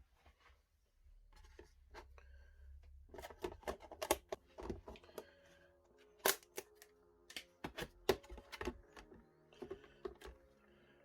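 Background music comes in about three seconds in, over a run of sharp clicks and rustles from something being handled.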